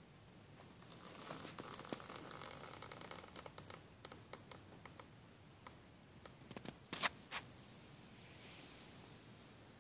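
Faint handling noise: soft rustling and scratching with small clicks, then a quick cluster of sharp clicks about seven seconds in.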